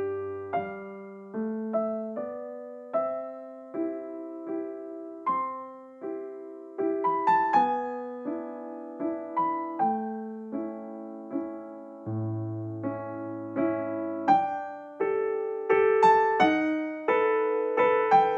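Gentle background piano music: a soft melody of single notes, each struck and fading, over a few held bass notes.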